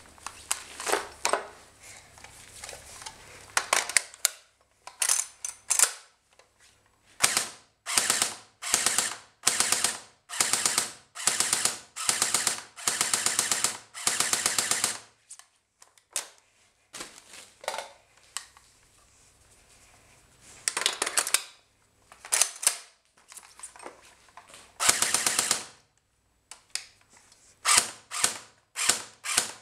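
CYMA M14 electric airsoft rifle firing, gearbox clicking rapidly, in a string of short and longer full-auto bursts with brief pauses between them. The gun is running on a battery that the owner calls weak.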